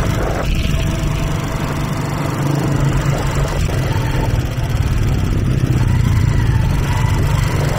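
Steady low rumble of vehicle engines running, over a general haze of street noise.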